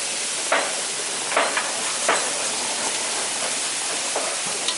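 Cross-cut beef short ribs sizzling on a hot flat-top griddle in a steady hiss, with a few sharp clicks of metal tongs as the ribs are turned.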